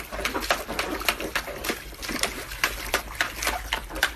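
Water splashing irregularly in a shallow plastic paddling pool as a dog lying in it shifts about, with a trickle from a garden hose.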